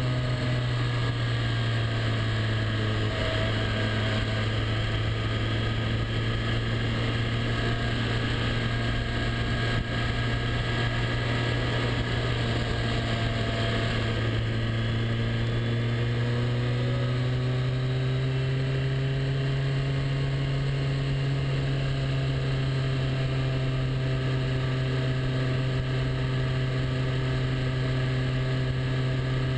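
Motorcycle engine running steadily while the bike is ridden along at cruising revs. The engine note eases a little in the first few seconds and rises again past the halfway point, then holds steady.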